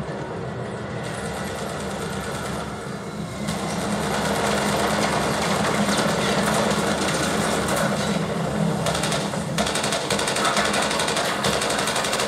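Action-film battle soundtrack played through a Klipsch Flexus Core 100 soundbar in movie mode with the bass raised: a dense, rapid clatter over a deep rumble. It gets louder about four seconds in.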